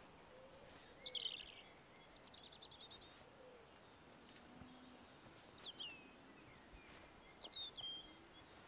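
Small songbirds over quiet rural ambience: a sharp downward whistle about a second in, then a quick trill of notes falling in pitch, and a few short high chirps later on.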